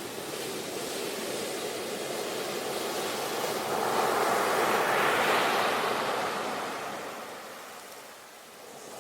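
Sea waves breaking on a shore: a wave's rushing wash swells to its loudest about halfway through, then ebbs away before the next one builds near the end.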